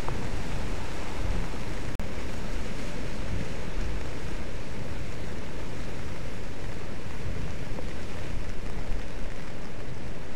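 Rough sea surf breaking and washing against lava rocks, a steady rush, with wind on the microphone. The sound drops out for an instant about two seconds in.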